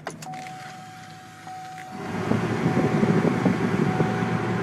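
The 2003 Chevrolet TrailBlazer's 5.3 V8 being started and running, heard from inside the cabin. A click or two and a steady thin tone come first, then about two seconds in the sound swells into a loud, steady running noise that holds.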